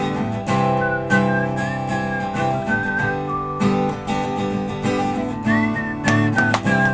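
Acoustic guitar music: strummed chords with a thin, high melody line gliding between held notes above them.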